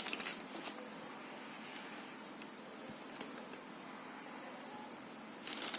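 Faint clicks and rustles of handling in the first second and again just before the end, over a steady low hiss with a faint hum.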